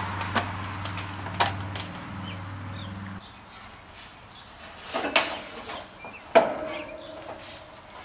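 A few sharp knocks and clanks of sheet metal and tools as a Trane XL1200 condensing unit's cabinet is taken apart, the loudest near the end. Under them a steady low hum cuts off suddenly about three seconds in.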